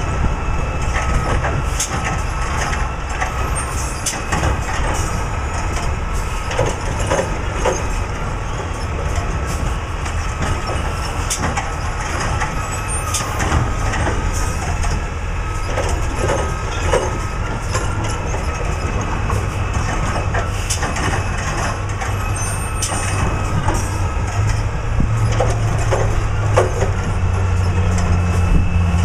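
Recycling truck's engine running steadily while it works through a row of recycling containers, with scattered knocks and bangs; the engine revs up and grows louder near the end.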